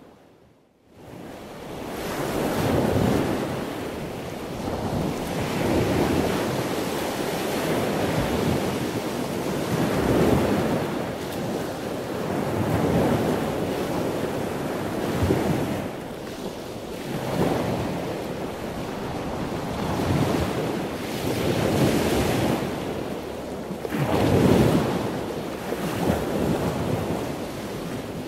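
Ocean surf washing onto a sandy beach, fading in after a moment of silence and then swelling and falling in waves about every two and a half seconds.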